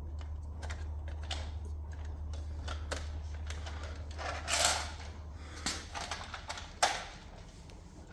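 Scattered light clicks and knocks, with a louder rustling burst about four and a half seconds in, over a steady low hum.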